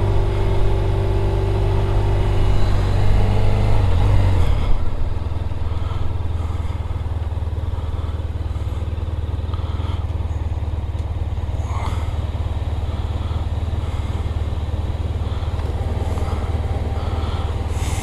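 Motorcycle engine running as the bike rolls slowly, then dropping to a steady idle about four and a half seconds in.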